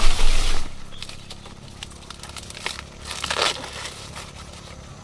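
Dry corn leaves and husks rustling and crackling as corn is handled in the field, loudest in the first moment, then softer with a couple of short crackles partway through.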